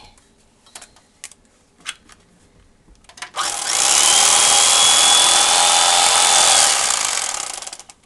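Electric carving knife switched on a little over three seconds in, running steadily as its blades saw through roast turkey breast, then cut off near the end. A few faint clicks come before it starts.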